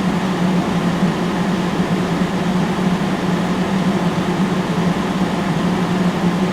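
Dead air on a NOAA weather radio receiver: steady static hiss with a constant low hum, unchanging throughout.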